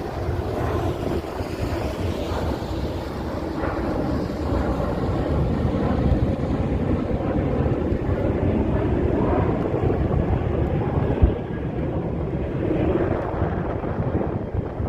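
Strong wind buffeting the microphone in a steady, gusting rumble, with one short knock about eleven seconds in.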